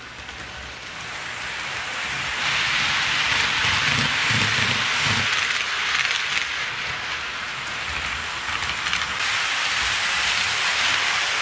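HO scale model trains rolling on the track, their wheels on the rails making a steady rushing hiss with faint clicks, fading in over the first couple of seconds.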